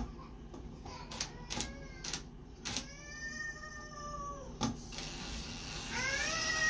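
DeWalt cordless drill turning a screw in a bathtub drain fitting: a few sharp clicks, then the motor whines steadily for about a second and a half and winds down as the trigger is released, and spins up again near the end.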